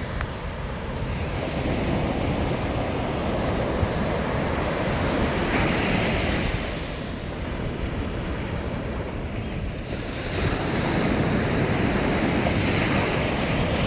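Surf breaking and washing up a sandy beach, swelling louder twice, with wind rumbling on the microphone.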